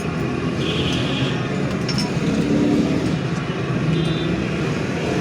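Steady low background rumble, with short faint high tones about a second in and again about four seconds in.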